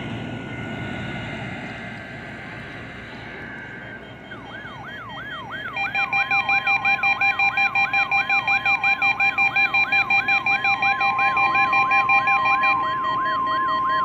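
NOAA weather radio receivers going into alarm on a weekly test. A siren-like alert sweeps down in pitch over and over, about twice a second. About six seconds in it is joined by the steady 1050 Hz warning alarm tone and a beeping alert from another receiver, all over radio hiss at the start.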